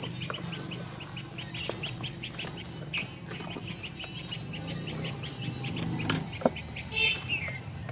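Cow being milked by hand: milk squirting in quick alternating streams into a steel bucket, about four to five squirts a second, with a sharp knock about six seconds in.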